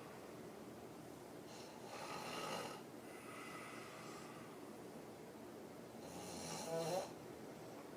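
A woman snoring hard in deep sleep, lying on her back with her mouth open: two loud rattling snores about four and a half seconds apart, with a quieter breath between. The second snore, near the end, is the loudest and stops sharply.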